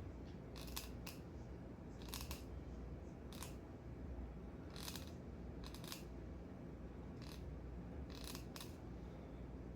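Fillet knife cutting through a trout, a series of short, crisp slicing sounds at irregular intervals, some in quick pairs and threes.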